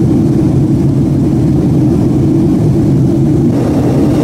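Steady low rumble of a jet airliner in flight, heard inside the passenger cabin: engine and airflow noise. The hiss brightens slightly near the end.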